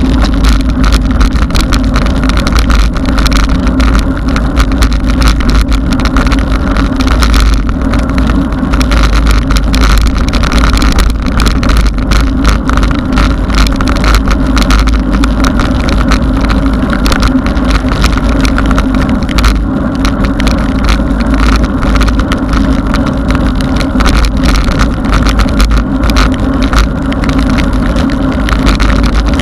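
Riding noise on a mountain bike's action camera: loud, steady wind buffeting the microphone with a deep rumble, plus tyre hiss on wet asphalt and frequent small knocks and rattles from the bike and camera mount.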